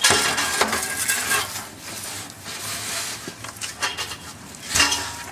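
Metal parts of a water heater being handled and worked apart: scraping and rattling, with a sharp knock at the start and another near the end.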